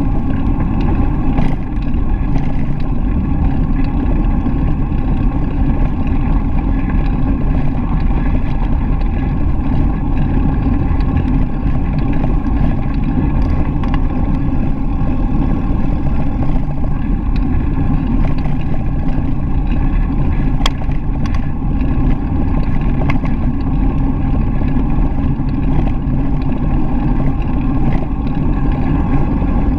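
Steady low rumble of wind on a GoPro's microphone while cycling, mixed with the bicycle's tyres rolling on a paved path. A single brief click about two-thirds through.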